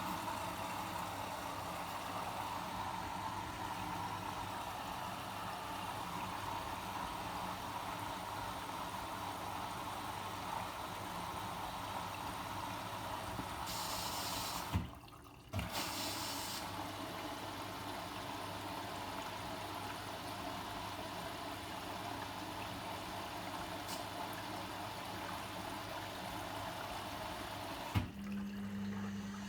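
Logik L712WM23 washing machine filling with water: the inlet valve clicks open and water rushes in steadily, stops with a click about halfway and clicks back on under a second later. Near the end it clicks off, leaving a steady low hum.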